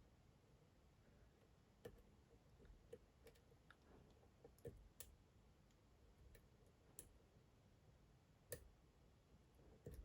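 Faint, irregular small clicks of a lock pick working the pins of a Dom IX Twinstar lock under tension, about eight scattered ticks.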